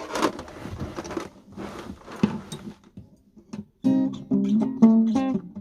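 Acoustic guitar played freely: muted, scratchy strokes at first, then from almost four seconds in, ringing chords strummed in a steady rhythm.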